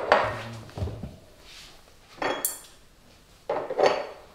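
Pressed-glass cup and saucer clattering against each other and the tabletop as they are picked up: three short bursts of knocks, the middle one with a brief high ringing clink.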